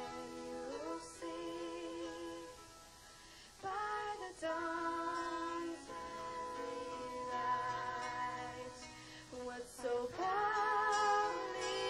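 A woman singing lead with a live band, in long held notes, some of them wavering, with short breaks between phrases.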